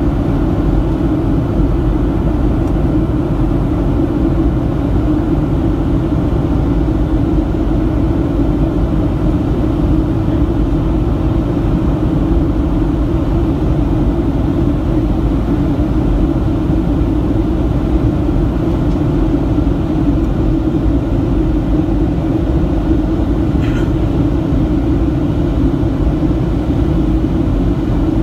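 Steady cabin noise of a Boeing 737-700 in flight on descent, heard from a window seat over the wing: its CFM56-7B turbofan engines and the rushing airflow make an even rumble with a strong low hum, unchanging throughout.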